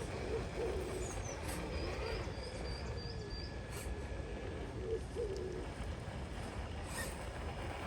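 Outdoor ambience: a steady low rumble, with bird calls over it, a quick series of high chirps in the first half and a few short low coo-like calls.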